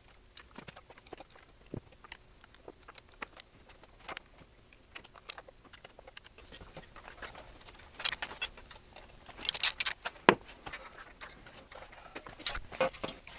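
Small metal clicks and taps of hands fitting new ignition coils, wire leads and screws onto an outboard motor's magneto stator plate, with louder clusters of clinks about two-thirds of the way through and a few heavier knocks near the end as the flywheel is handled.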